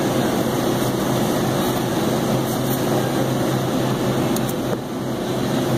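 Steady rushing air noise with a low hum, the running fans and refrigeration unit of a walk-in cooler.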